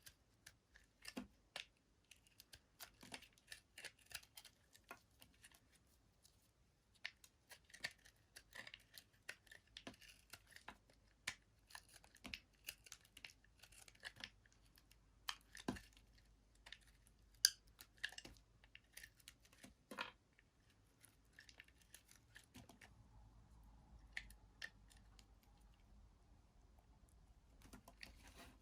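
Soap being cut: crisp, irregular crackling and crunching clicks that thin out after about 23 seconds, leaving a faint steady hum.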